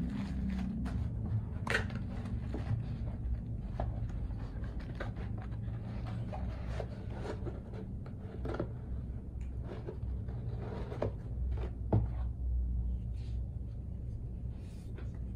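Handling of a kraft cardboard mailer box: rustling of the wrapped contents, the flaps folded down and the lid pressed shut, with a string of light taps and scrapes of cardboard and one sharper knock near the end. A steady low hum runs underneath.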